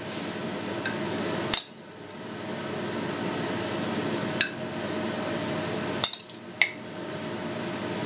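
A metal utensil clicks and clinks about four times against a plate and a clay pot as fried mushrooms are spooned in, one strike ringing briefly, over a steady background hum.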